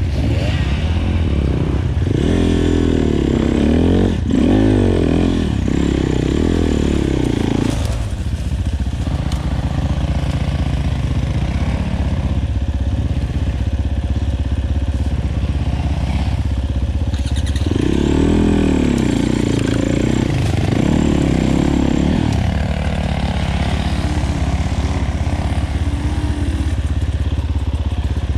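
Enduro motorcycle engine running under riding load, revving up and down in several quick swells a couple of seconds in and again about two-thirds of the way through, with a steady low drone in between.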